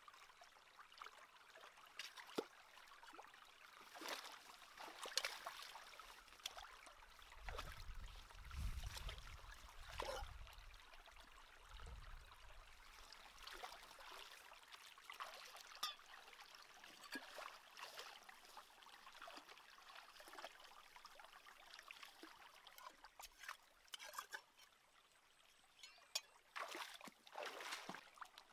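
Shallow rocky stream trickling, with frequent small splashes as someone wades barefoot and reaches into the water among the stones.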